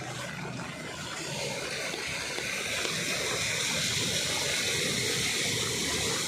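Floodwater rushing in a strong current: a steady gushing hiss that grows louder about two seconds in.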